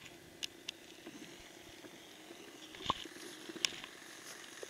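Faint, steady distant hum of a radio-controlled model airplane's motor and propeller in flight, with a few sharp clicks.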